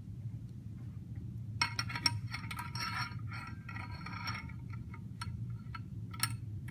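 Metal clip being fitted onto a prong of a tuning fork mounted on a wooden resonance box: a run of clinks and scrapes, some with a short ring, followed by a few separate clicks.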